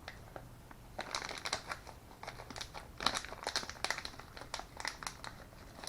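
Plastic packaging crinkling and rustling as a pack of Deans T-plug connectors is handled, with irregular crackles starting about a second in.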